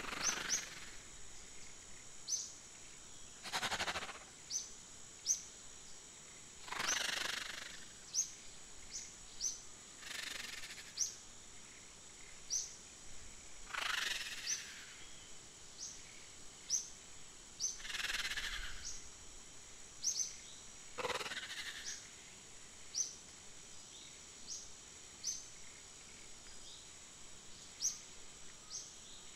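Nature ambience of short, high bird chirps, scattered irregularly over a steady high tone. A soft whooshing swish about a second long comes every three to four seconds.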